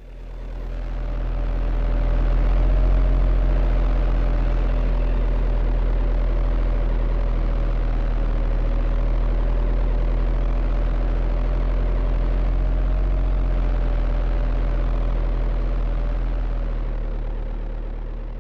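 Steady motor drone with a faint wavering whine, the sound of a remote-control excavator's electric motor and hydraulic pump running; it fades in over the first couple of seconds and fades down near the end.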